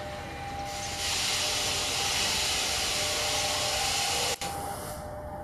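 Passenger train hauled by a diesel locomotive approaching at speed: a loud steady rushing hiss that starts about a second in and drops away near the end, with a brief break just before, over a faint steady two-note tone.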